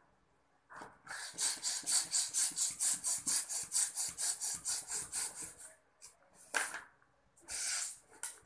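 A hand balloon pump worked quickly, about five rasping puffs of air a second, inflating a latex balloon; the pumping stops near 6 s, followed by two short noises as the balloon is handled.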